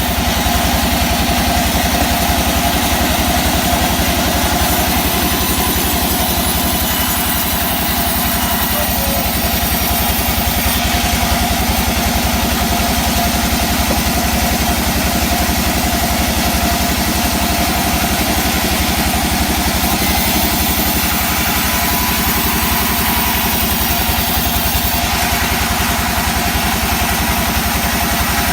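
Sawmill machinery running, a steady engine drone that holds the same pitch and level throughout.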